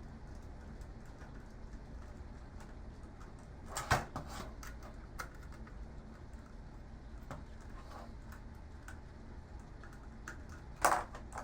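Scattered light clicks and one louder knock about four seconds in, from handling and unscrewing the plastic and metal parts of a computer monitor being taken apart, over a steady low background hum.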